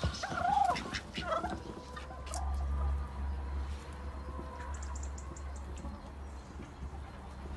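Chickens clucking and calling in the first second or two, followed by a steady low rumble.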